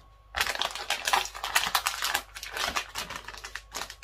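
Copper-mask packaging being handled, rustling and crackling in quick, irregular clicks that start about half a second in and thin out towards the end.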